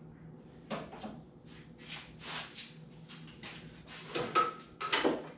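Small clamps being handled and set in place: a string of irregular clicks and clatters, loudest near the end.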